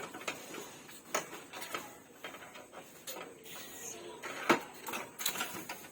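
Handling noises of unpacking a gas stove: packaging rustling and scraping with scattered light knocks, the loudest about four and a half seconds in.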